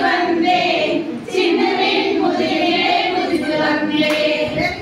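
A group of women singing together in chorus, their voices holding and gliding through sung notes.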